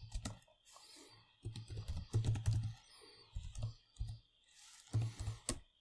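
Typing on a computer keyboard: several short bursts of keystrokes with brief pauses between them.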